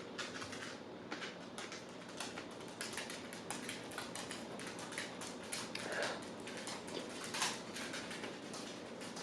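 Close-up chewing and wet mouth sounds of someone eating, a quick irregular run of small clicks and smacks.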